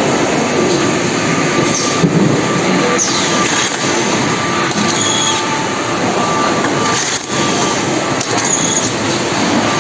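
Automatic packaging-line machinery running with a steady mechanical clatter, broken by a few knocks, short high squeaks and a brief falling whistle.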